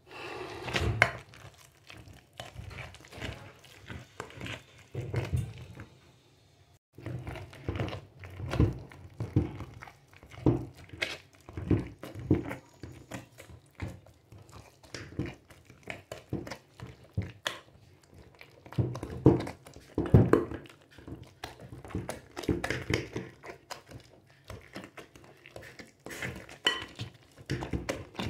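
Wire potato masher mashing peeled bananas in a glass bowl: irregular repeated thunks as it strikes through the fruit, with a short pause about six seconds in.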